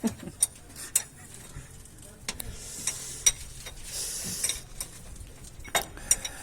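Irregular light metallic clinks and taps, about a dozen, spread unevenly, with two short hissing stretches around the middle.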